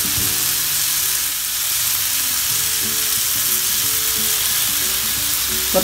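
Chopped onion and tomato masala sizzling steadily in oil in a frying pan, with soft background music playing along.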